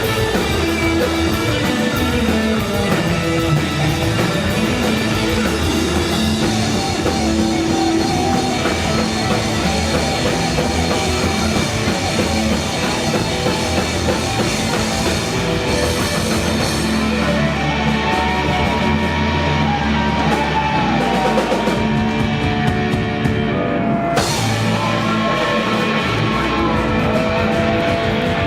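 Live rock band playing: drum kit and electric guitars, loud and steady, with gliding guitar notes over the second half.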